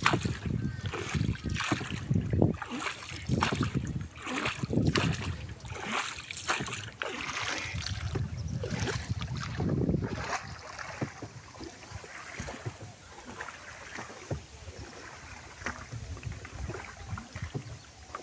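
Wooden paddle strokes splashing and knocking in the water as a small wooden boat is paddled, roughly one stroke a second. After about ten seconds it gives way to quieter, steady water and wind noise with small splashes.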